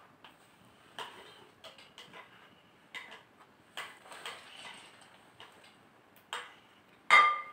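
Scattered light ticks and taps of a small utensil against a ceramic plate and a glass bowl as fruit is pushed off the plate into the bowl, with a louder ringing clink near the end.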